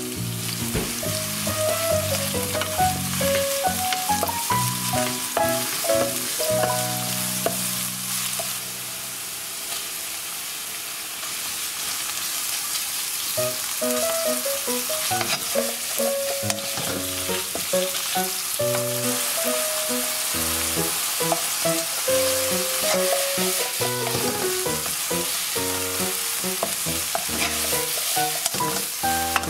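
Stir-frying in a nonstick wok: sliced scallion, minced garlic and ginger sizzling in hot oil, then slices of pork fillet frying, with a wooden spatula stirring and scraping across the pan.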